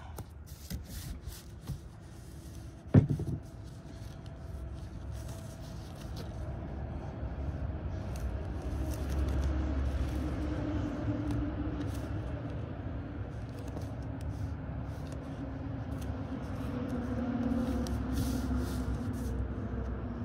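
A low, steady rumble that grows louder partway through, with a sharp click about three seconds in and faint ticks from masking tape being pressed down onto tent canvas.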